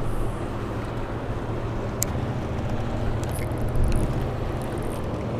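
An engine running steadily, a low even drone, with a few faint clicks over it.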